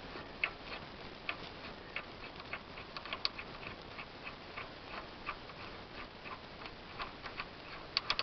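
Crankshaft pulley bolt being threaded back into the crankshaft nose by hand on a Renault Kangoo's 1.5 dCi diesel, giving light, irregular metallic clicks, a few a second, with a quick cluster of sharper clicks near the end.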